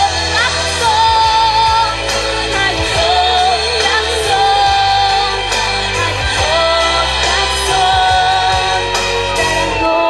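A young woman singing a slow song into a handheld microphone over backing music with bass and cymbals, holding long notes with vibrato.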